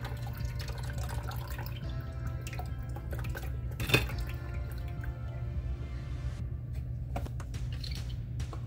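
Chicken broth poured from a carton into a plastic measuring cup, liquid splashing and dripping, with a sharp knock about four seconds in, over background music.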